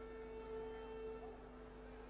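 Faint stadium crowd noise on an old television broadcast recording, under a steady electrical hum. A held tone with overtones sounds through the first part and fades out about a second and a half in.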